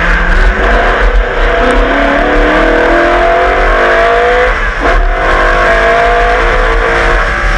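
The V8 engine of the 1989 HRT Walkinshaw VL Commodore Group A race car accelerating hard, its revs climbing, breaking off briefly about five seconds in for an upshift, then climbing again.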